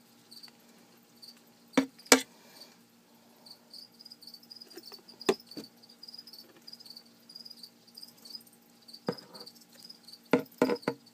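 A cricket chirping steadily in short, evenly repeated high chirps, starting a few seconds in. Sharp knocks and clicks come through it, the loudest a pair about two seconds in and a cluster near the end as metal feeding tongs reach into the plastic enclosure.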